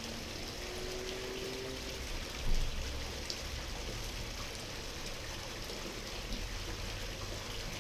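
Steady rushing, water-like noise, with one soft thump about two and a half seconds in.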